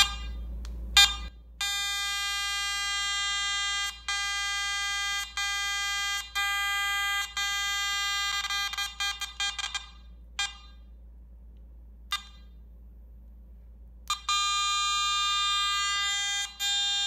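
Garrett AT Max metal detector sounding a steady buzzing tone with the coil lying still, broken by short gaps about once a second, then stuttering into rapid chatter, going quiet for a few seconds and coming back. This is a fault in the detector, which the owner rules out as a coil problem because it does it on both coils.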